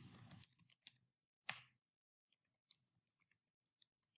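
Faint computer keyboard typing: a scatter of soft, irregular keystroke clicks, with one louder click about one and a half seconds in.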